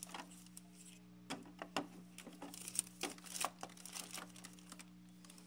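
Clear plastic packaging crinkling and rustling with scattered small clicks as a PVC figure is handled out of its plastic tray, over a faint steady hum.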